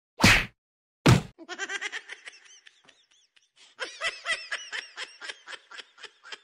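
Two loud whacks of a stick striking in the first second and a half, then high-pitched laughter in quick repeated bursts, with a short pause around the middle.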